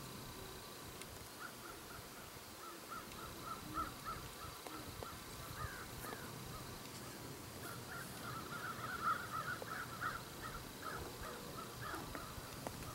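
Birds calling in the distance: runs of short, repeated harsh notes, busiest from about eight to eleven seconds in, over a faint outdoor background.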